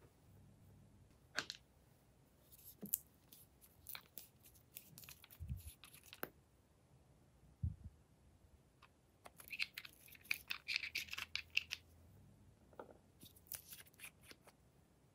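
Hands handling small plastic pens and caps: scattered sharp clicks and taps, and a scratchy burst lasting about two seconds a little past the middle.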